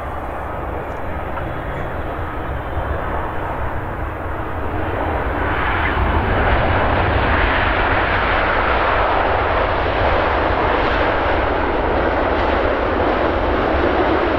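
Boeing 777 jet engines and rushing air: a steady noise over a low rumble that grows louder about five seconds in and then holds.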